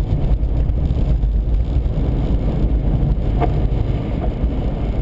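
Steady low rumble inside a car's cabin at highway speed: road, engine and wind noise from a strong gusting crosswind pushing against the car.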